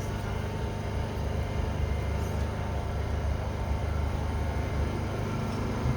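Steady low rumble of a large exhibition hall's background noise.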